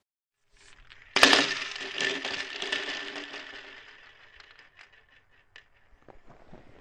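Small hard pieces, like dry dog kibble, pouring into a bowl: a sudden rush of rattling about a second in that fades over a few seconds into scattered single clicks of pieces settling.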